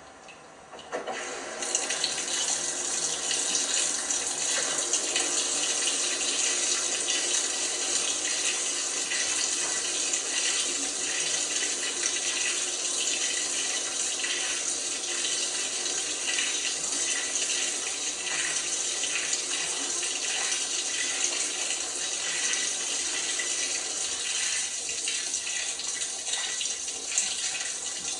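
LG washing machine taking in water: after a quieter moment, the inlet valve opens about a second and a half in and water rushes steadily into the drum.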